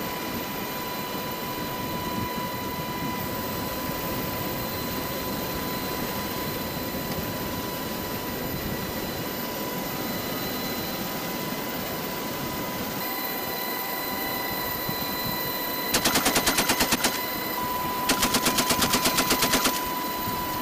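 Steady noise of an HH-60 Pave Hawk helicopter in flight, heard from the open cabin door. Near the end, the door-mounted GAU-18 .50-calibre machine gun fires two bursts at about ten shots a second: a short burst of about ten rounds, a brief pause, then a longer burst of about fifteen.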